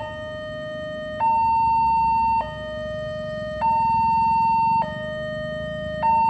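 Railway level-crossing warning siren sounding a two-tone hi-lo alarm, alternating a lower and a louder higher note about every 1.2 seconds.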